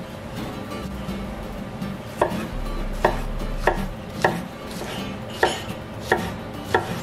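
Kitchen knife slicing a peeled pineapple spear crosswise on a white cutting board. Each cut ends in a sharp knock of the blade on the board. About seven cuts, roughly one every two-thirds of a second, begin about two seconds in.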